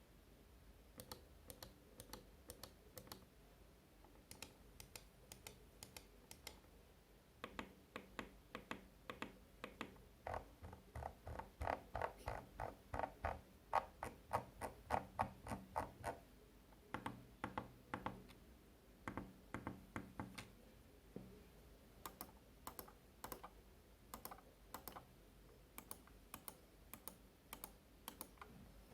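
Razer DeathAdder V2 gaming mouse's optical-switch buttons clicking, at first in spaced single clicks, then in a faster, louder run about halfway through, easing back to spaced clicks near the end.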